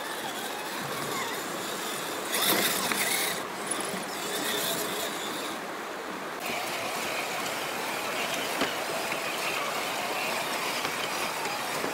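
Radio-controlled scale crawlers driving through creek water: a thin, steady electric-motor whine over water noise, with a louder burst of splashing about two and a half seconds in.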